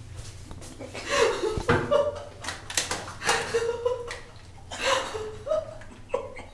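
Laughter and chuckling in bursts in a small tiled bathroom, over a low steady hum. A single sharp knock about one and a half seconds in.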